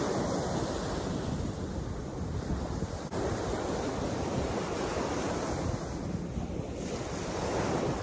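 Small waves breaking and washing up on a sandy shore, a steady surf noise, with wind buffeting the microphone.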